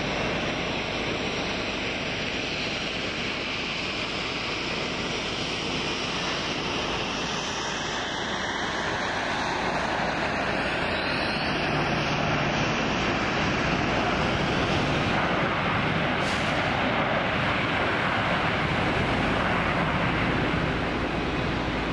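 Embraer ERJ-145 regional jet's twin rear-mounted turbofans, a steady jet rush as it lands and rolls out on the runway. The rush grows louder about halfway through and cuts off sharply just before the end.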